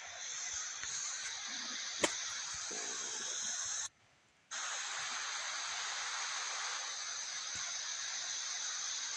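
Waterfall rushing steadily, a dense hiss of falling water, with a single sharp click about two seconds in and a half-second drop-out a little before the middle.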